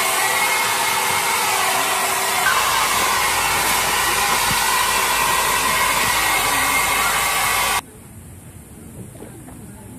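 Steady, loud rush of air with a faint steady whine, as from a small electric blower motor, cutting off abruptly about eight seconds in.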